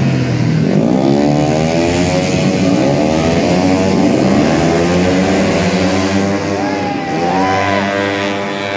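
Several tuned 130cc automatic racing scooters running at high revs, their engine notes rising and overlapping. Near the end, single bikes hold a note and then drop in pitch as they pass.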